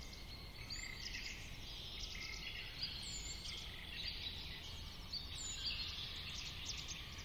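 Forest ambience: short high bird chirps every second or so over a steady, faint background hiss.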